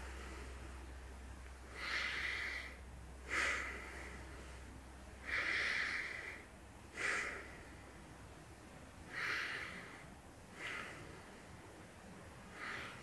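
A man breathing audibly in a paced breathing exercise: about seven breaths a second or two apart, longer ones alternating with short, sharp ones.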